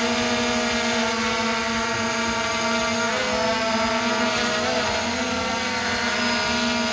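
Holy Stone HS700E quadcopter hovering close by: a steady buzzing whine from its brushless motors and propellers. The pitch wobbles briefly about three seconds in and again near the end as the motors adjust.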